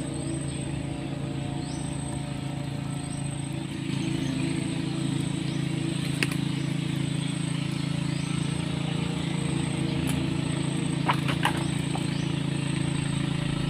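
A steady low engine hum, with a thin high insect buzz that comes and goes and a few sharp clicks about eleven seconds in.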